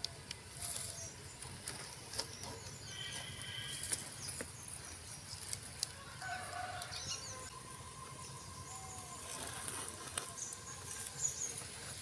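Quiet outdoor ambience with scattered small bird chirps, a couple of short pitched calls from birds or fowl, and a few faint clicks over a low steady background.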